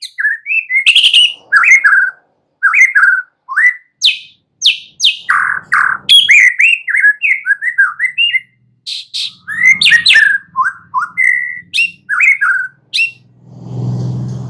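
White-rumped shama singing: a fast, varied string of whistled phrases and chirps in short bursts with brief gaps, stopping about a second before the end. A low rumble swells up near the end.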